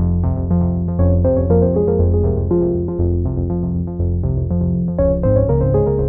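Electronic background music: synthesizer keyboard notes in a quick, even rhythm over changing bass notes.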